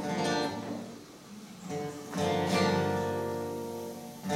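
Acoustic guitar strummed, one chord ringing out and fading, then another chord strummed about two seconds in and left to ring.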